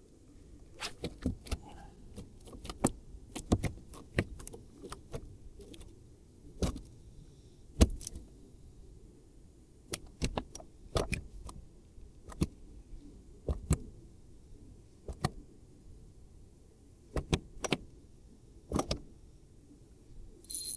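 Irregular sharp clicks and knocks, about one a second, as a spinning rod and reel are handled in a plastic sit-on-top kayak, over a faint low rumble; one knock near the middle is the loudest.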